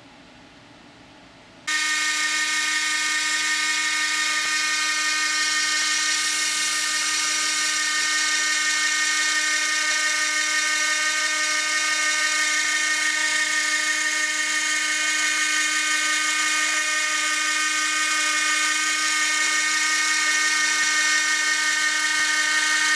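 Dremel rotary tool on a homemade CNC machine spinning at high speed while a 40-degree 0.2 mm V-shaped engraving bit routes traces into a copper-clad circuit board. It makes a steady high-pitched whine that starts suddenly about two seconds in and cuts off suddenly near the end.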